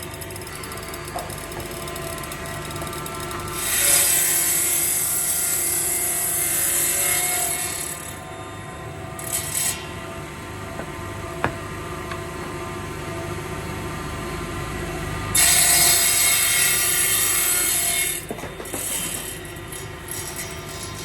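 CNC machine's spindle and surfacing cutter planing a granadillo wood slab: a steady machine hum with fixed tones, and two louder stretches of hissing cutting noise as the cutter bites the wood, about four seconds in for four seconds and again about fifteen seconds in for under three seconds. A single sharp click in the middle.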